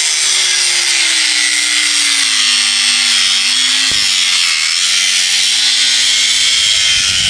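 Angle grinder with a cut-off wheel cutting through a steel all-thread rod, running steadily with a loud grinding hiss; the motor's pitch sags slowly as the wheel bites into the rod.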